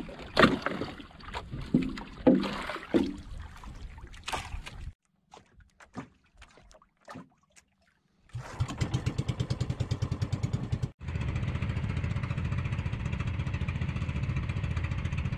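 Knocks and clatter of fish and gear being handled in a small outrigger boat, then, after a short quiet gap, the boat's small engine running with a steady, even pulse, broken once by a brief cut.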